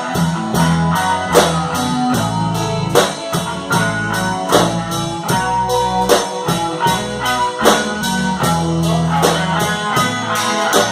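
Instrumental break of a band's song, with no singing: guitar over sustained bass and drums keeping a steady beat of about three strokes a second.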